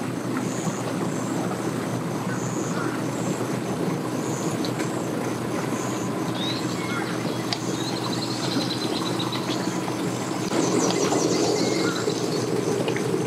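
Evinrude 40 outboard motor idling steadily, with birds chirping over it. The engine gets louder for a couple of seconds near the end.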